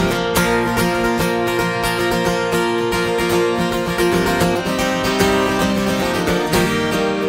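Solo acoustic guitar played live in a fast instrumental passage with no singing, dense with quickly picked notes.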